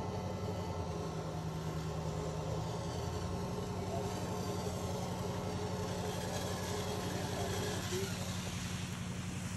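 Tow boat's engine running steadily at an even pitch.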